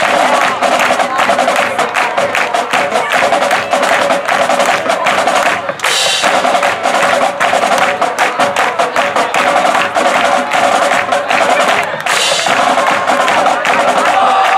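High school marching band playing as it takes the field, led by its drumline's quick, dense snare and bass drum strokes. There is a brief break about six seconds in.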